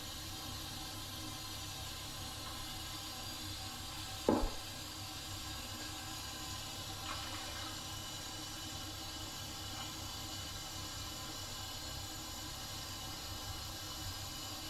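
Steady hiss of running water in a small bathroom, with a single short knock about four seconds in.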